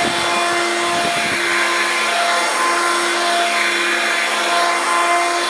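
Hoover Platinum Collection Linx cordless stick vacuum running steadily: a constant motor whine over the rush of air.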